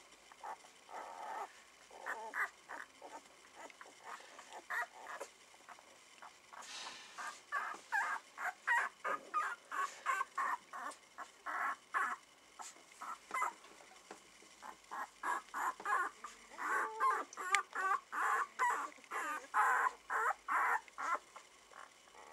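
A litter of nine-day-old border collie puppies squeaking and whimpering in many short cries, a few at first, then coming thick and fast from about a third of the way in.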